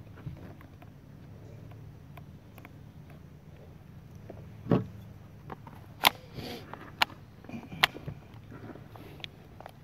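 Sharp clacks and clicks of a Kel-Tec Sub 2000 carbine being handled at the bench, four distinct knocks about a second apart in the second half, over a low steady background.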